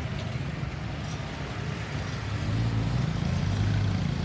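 Road traffic: the low rumble of a motor vehicle's engine, growing louder over the last second and a half as it comes closer. No siren is sounding.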